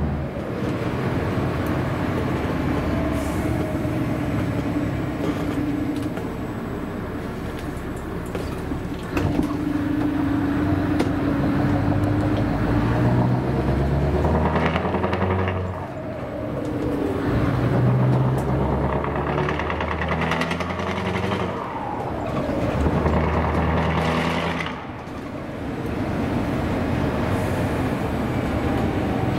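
Scania 4-series V8 diesel truck engine running under way, heard from inside the cab, its revs climbing and dropping several times.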